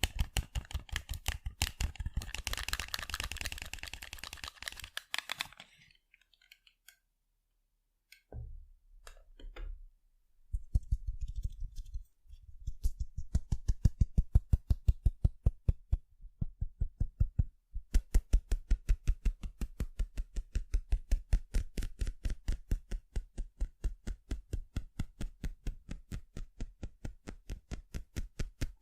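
Fingertips or nails tapping rapidly on sunglasses, several even taps a second. The tapping pauses briefly about six seconds in, then resumes with a few uneven knocks before settling back into a steady rhythm.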